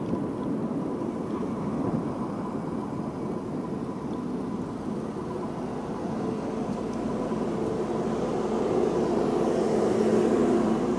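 Steady rolling noise of a road bike riding over paved city sidewalk, tyre and wind noise with city traffic behind, growing a little louder near the end. A faint steady high whine sits over it.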